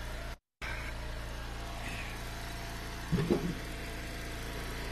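Eastonmade log splitter's small gas engine running steadily, with a brief knocking of wood about three seconds in as a hickory round is set onto the splitter beam. The sound cuts out for a moment near the start.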